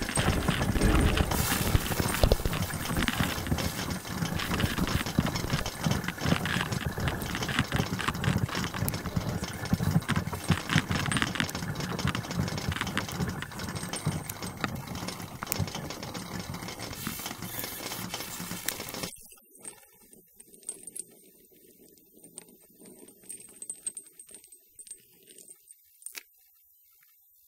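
Dense clattering and rattling made of many rapid clicks and knocks. It cuts off abruptly about two-thirds of the way through, leaving faint scattered clicks over a quiet low drone.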